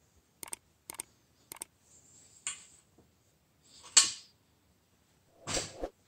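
Three pairs of quick light clicks about half a second apart, then handling sounds as a heavy red battery cable with a crimped copper lug is set down on a steel workbench. The loudest is a sharp knock about four seconds in.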